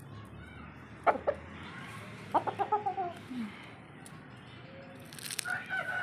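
Aseel chicken clucking in a quick run of short calls about two seconds in, and again near the end. A single sharp knock comes about a second in.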